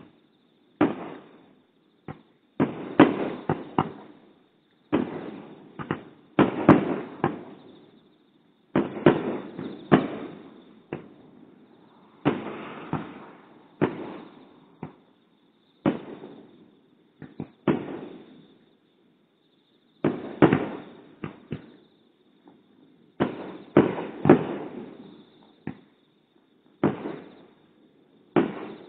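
Aerial firework shells bursting: a string of booms every second or two, sometimes two or three in quick succession, each trailing off in a rolling echo.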